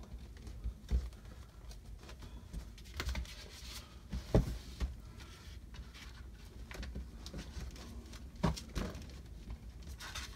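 Scattered light taps and clicks of push pins being pressed into the back of a canvas painting, with hands shifting the canvas on a paper towel. The loudest knock comes a little past four seconds in.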